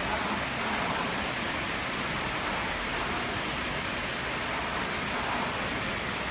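Rowing machine's air-resistance flywheel whooshing steadily as it is pulled hard, stroke after stroke.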